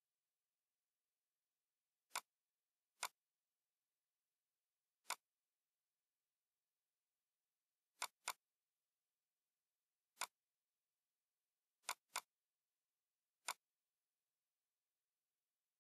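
Computer mouse clicks: nine short, sharp clicks spaced irregularly, two of them in quick pairs about a third of a second apart.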